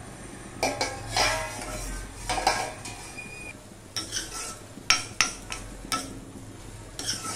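Steel plate lid clattering off an iron kadai, then a steel spoon scraping and stirring cooked greens, with several sharp clinks of spoon on metal in the second half.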